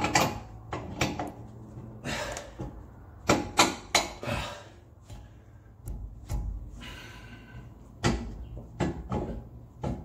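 Irregular metallic knocks and clunks as a new Bilstein 5100 shock absorber, stiff to compress, is squeezed by hand and pushed against its mounting point under a Ford F-150. The loudest knocks are a quick pair about three and a half seconds in.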